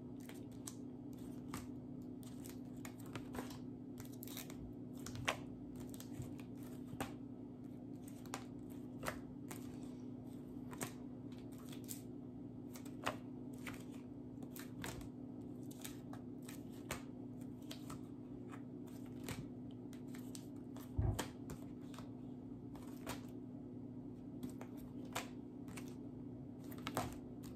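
Stiff Fundations sound cards being handled and flipped one after another, a soft flick or tap about once a second, over a steady low hum. One soft thump about three-quarters of the way through.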